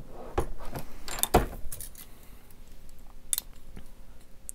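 A Hornady single-stage reloading press cycled and a brass rifle cartridge handled: a series of sharp metallic clicks and clinks, the loudest about a second and a half in.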